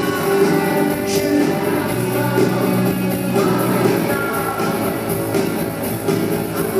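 Rock band playing a song live in concert, with guitars and singing.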